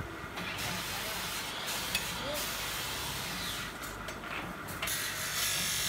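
Drill press drilling through a steel tube frame, the bit cutting metal with a steady high-pitched noise that comes in about half a second in and grows louder near the end.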